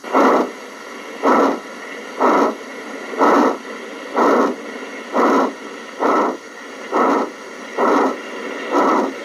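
HO scale model steam locomotive's sound unit chuffing slowly, about one even chuff a second, over a steady hiss.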